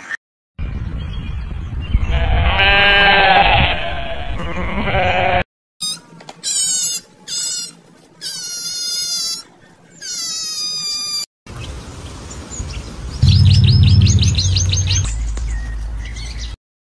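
Animal calls from several short clips in a row. First comes one drawn-out, wavering call, then a string of about five short, high calls, then a quick run of high chirps over a low hum near the end.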